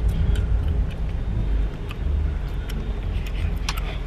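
Ford Mustang convertible being driven slowly with its top down as it pulls over: a steady low rumble of engine and road noise, with a few faint scattered clicks.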